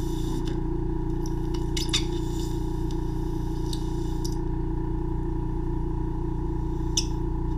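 Ear microsuction vacuum running steadily, its tip sucking at wax in the ear canal, with a few short crackling slurps as bits of wax are drawn into the tip: a cluster about two seconds in and one near the end.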